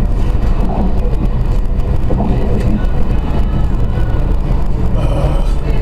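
Steady road and engine rumble of a car driving at highway speed, heard inside the cabin.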